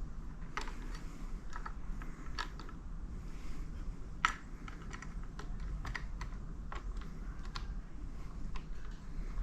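Irregular light clicks and taps of a hand tool on the screws of a motorcycle's alloy handlebar switch housing as they are tightened, with one sharper click about four seconds in.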